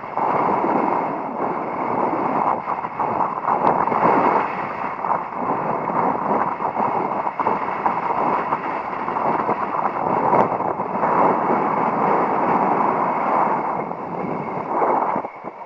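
Strong wind and water rushing in a steady noise that surges and eases, dropping away sharply near the end.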